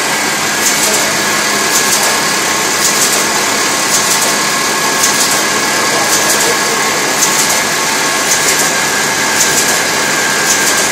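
A rebuilt Turing-Welchman Bombe running as it searches through Enigma rotor settings. Its electric motor drive and rotating drums make a steady mechanical clatter and whirr, with a sharper rattle about once a second.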